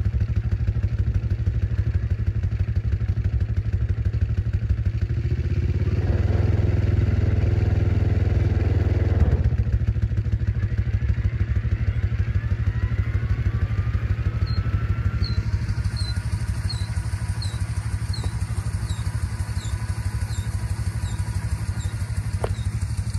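Small engine running steadily with an even low beat. About two-thirds of the way in, a regular high squeak starts, repeating about twice a second, over a faint rising whine.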